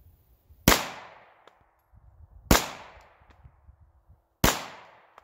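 Three pistol shots from a Taurus TH9 9mm, about two seconds apart, each with a decaying echo. The pistol is firing heavy +P handloads and cycles each round.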